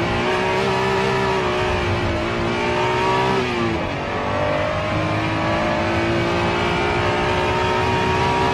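Honda NSX V6 engine heard from inside the car, accelerating with rising revs. The revs drop sharply about three and a half seconds in, then climb steadily again.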